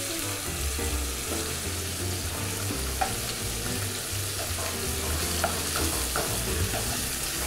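Rabbit pieces sizzling as they brown in a frying pan on the stove, with a few light clinks of the utensil turning them.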